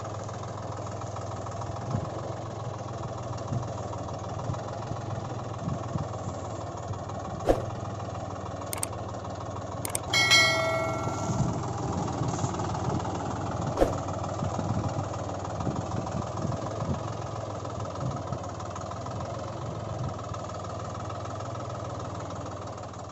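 An engine running steadily at idle, with a few sharp clicks and a brief ringing tone about ten seconds in.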